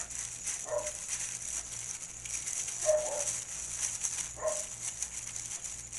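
Disposable plastic glove rustling and scraping in a bowl of flour as a mushroom piece is rolled to coat it. Three short, high-pitched calls come about a second in, at three seconds and a little before the end.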